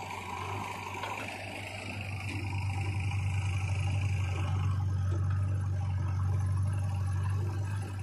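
Diesel engines of a JCB 3DX backhoe loader and farm tractors running with a steady low drone that grows louder about two and a half seconds in, over a higher whine that stops a little before halfway.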